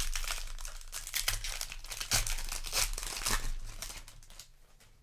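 Foil wrapper of a Magic: The Gathering play booster pack being torn open and crinkled, a dense crackling that goes on for about four seconds and dies away near the end.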